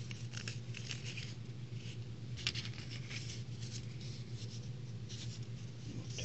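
Paper sticker strip rustling and crinkling as fingers handle and roll it, in irregular soft crackles with a sharper one about two and a half seconds in, over a steady low hum.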